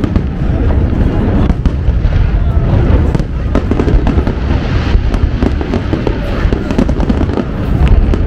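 Aerial fireworks display: a dense, continuous barrage of overlapping bangs and crackling shell bursts with a heavy low rumble underneath, loud throughout.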